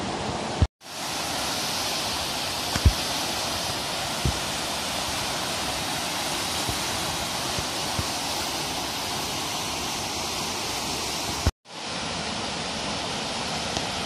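Steady rushing of a waterfall pouring over a rock ledge into a pool below. The sound cuts out completely for a moment twice, and there are a couple of faint knocks.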